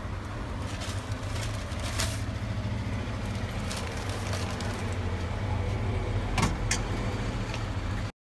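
Steady low rumble of street background noise, with a few sharp knocks about two seconds in and twice around six and a half seconds. It cuts off abruptly just before the end.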